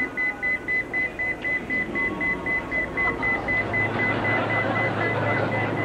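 Rapid electronic beeping, about five short high-pitched beeps a second. About three and a half seconds in, a low steady hum and a growing noise join it.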